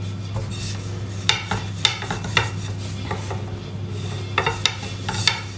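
Long, thin wooden rolling pin rolling out dough on a pastry board, clacking and knocking against the board several times, over a steady low hum.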